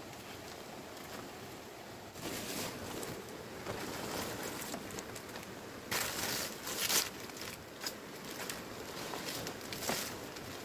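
Green palm fronds rustling and crinkling as they are pushed and tied onto a bamboo roof frame, in several short bursts, the loudest about six to seven seconds in, over a steady background hiss.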